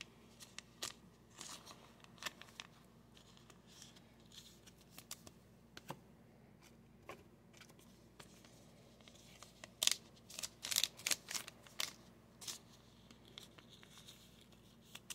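Thin clear protective film being peeled off chrome trading cards: faint, scattered crinkles and ticks, with a run of louder crinkling about ten seconds in.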